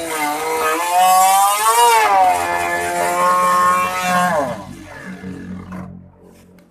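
Electric wood router running at high speed, its pitch dipping and recovering as the bit cuts, then switched off about four seconds in and winding down with a falling whine to a faint hum.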